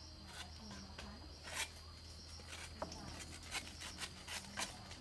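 Large kitchen knife cutting and scraping the tough husk off fresh bamboo shoots: a few short rasping strokes at uneven intervals, over a steady low hum.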